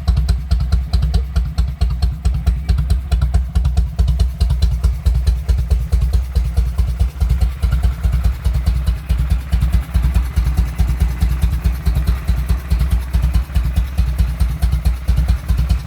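Harley-Davidson Shovelhead air-cooled V-twin engine idling with a steady, regular pulsing beat.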